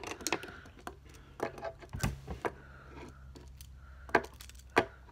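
Clicks and knocks of a Tech Deck finger BMX hitting a hard surface during a finger trick. They come irregularly, with a heavier knock about two seconds in and two sharp clicks near the end.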